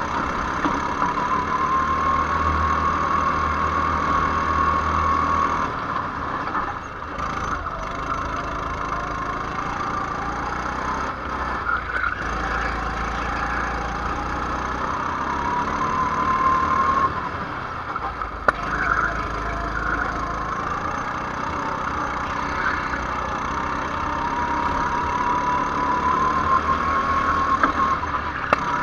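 Go-kart engine heard from onboard at speed. Its pitch climbs steadily as it accelerates along the straights, then drops sharply when the driver lifts off for a corner; this happens about three times.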